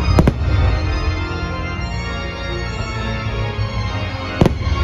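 Loud organ-led show music from a fireworks show's soundtrack, punctuated by firework bangs: two sharp reports just after the start and another near the end.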